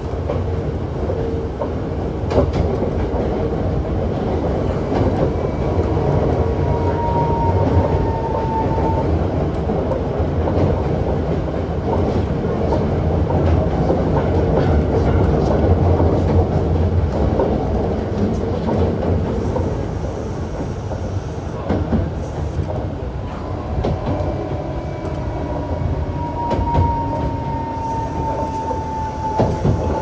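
Hankyu 7300 series electric train with Toyo IGBT VVVF traction equipment running at speed, heard from inside the car: a steady rumble of wheels on rail with scattered joint clicks and a faint steady tone. A thin tone slides slightly downward twice, once briefly about a quarter of the way in and again for the last several seconds.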